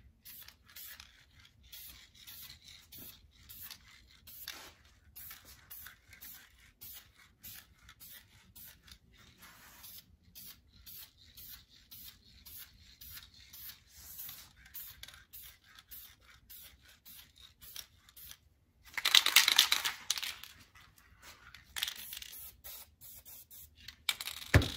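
Aerosol can of self-etching primer being shaken, its mixing ball rattling about three times a second. About 19 seconds in comes a loud hiss of spraying lasting about a second and a half, with shorter hisses near the end.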